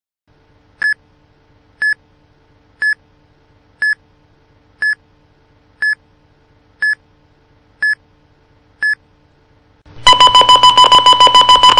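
Electronic countdown beeps for a cartoon bomb: one short high beep each second, nine in all, over a faint steady hum. About ten seconds in, a loud, fast-repeating alarm beep takes over, the last warning before detonation.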